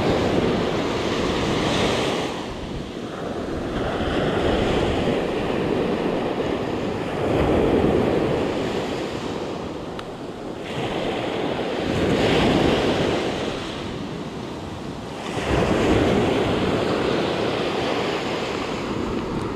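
Ocean surf washing onto a sandy beach, swelling and falling about every four seconds, with some wind on the microphone.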